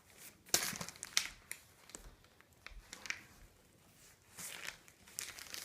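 Scattered light clicks, taps and rustling from gear being handled, with short quiet gaps between them.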